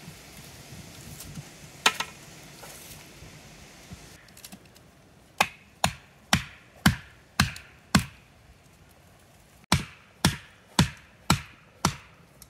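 A hatchet's poll is striking an orange plastic felling wedge set in the saw cut of a standing pine, driving it in. There is one knock first, then a run of six sharp strikes about two a second, a short pause, and five more at the same pace.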